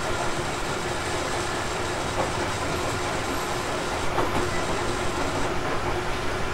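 Interior running sound of a Tobu 50050-series electric train car: a steady rumble of wheels on rail, with the air conditioning running, and a slightly louder clatter about four seconds in.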